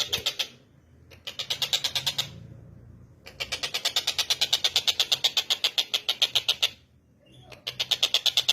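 Tengkek buto, a kingfisher, calling in fast rattling series of sharp repeated notes, about eight a second, in four bouts with short pauses between them.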